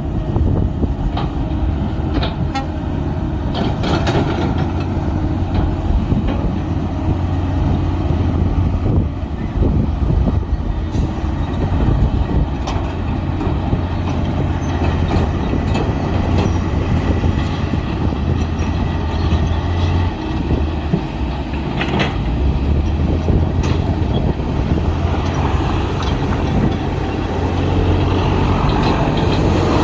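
Komatsu D53P bulldozer's diesel engine running under load with a steady low drone that eases off briefly twice, with scattered sharp knocks from the machine working.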